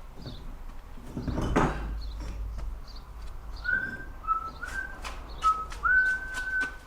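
Someone whistling a few short, level notes that step between two pitches, the last held longest, over sharp clicks and taps. A brief rushing scrape comes about a second and a half in.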